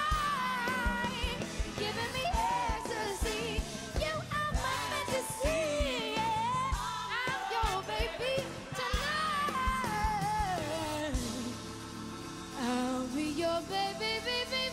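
A woman singing a pop-soul song into a microphone with a live band, the voice bending and wavering through long phrases over a steady drum beat; the drums thin out near the end while the band holds notes under her.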